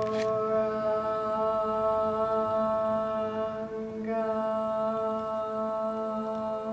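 Slow meditative chant music with long, steady held tones forming a chord; the chord changes about four seconds in.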